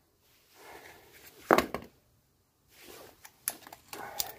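Scattered sharp knocks and clicks of hand work on parts and tools, one loud knock about a second and a half in and a cluster of lighter clicks near the end, with soft rustling between.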